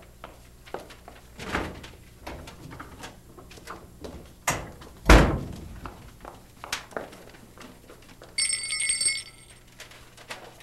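Knocks and bumps of a plastic laundry basket being handled around a washing machine. The loudest sound is a single heavy thump about five seconds in. Near the end a steady, bell-like ring sounds for about a second.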